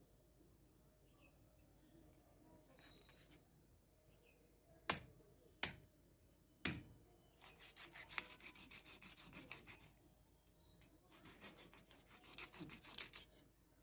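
Long knife cutting raw chicken on a wooden chopping block: three sharp knocks of the blade on the block around the middle, then two runs of quick cutting strokes. Faint bird chirps.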